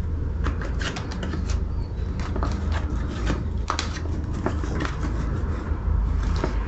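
A black moulded plastic and rubber motorcycle part being handled and pushed into place against the bike's frame: a run of irregular clicks, taps and scrapes.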